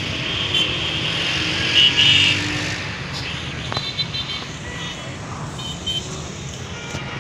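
Road traffic at a busy junction: a steady rumble of engines, with several short, high-pitched tones over it, the loudest about two seconds in.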